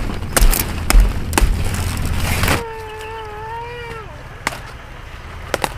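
Crisp snapping and cracking of cauliflower stalks and leaf stems being cut and broken. It stops abruptly about halfway through. A high voice then calls out once, about a second and a half long and dropping at the end, followed by a few light snaps.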